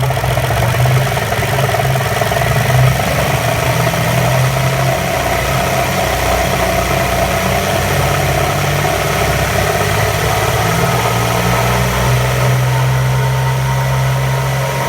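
2000 Jaguar S-Type's 3.0 V6 engine running steadily with a weird noise, which the owner believes is a leaking intake manifold but is not sure.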